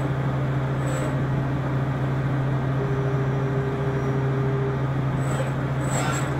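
Spinner U-620 CNC machining centre running, a steady low hum with a few faint ticks.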